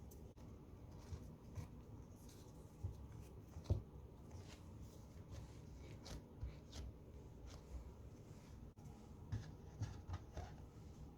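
Soft handling sounds of food preparation: light rustles, taps and small clicks, with one sharper knock about four seconds in.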